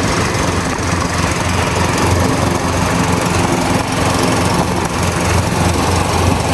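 Cub Cadet riding lawn mower's 18 horsepower Kohler 5400 series engine running steadily.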